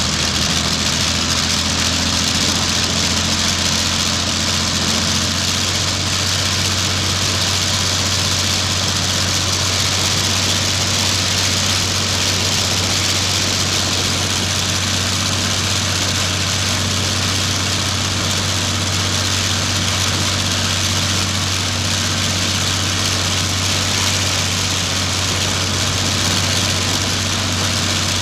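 Rolls-Royce V12 piston aero engine on a ground-run trailer, idling steadily with its propeller turning: a loud, even, low hum with no revving.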